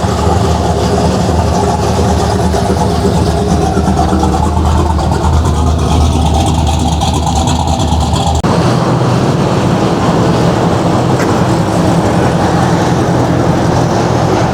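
Holden Commodore Crewman ute's engine running with a steady, deep rumble as it drives in. About eight seconds in, the sound changes suddenly to a different steady engine note.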